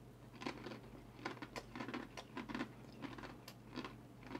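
A person chewing a mouthful of dry, uncooked Korean instant ramen noodles dusted with seasoning powder: faint, irregular crisp crunches, a few a second.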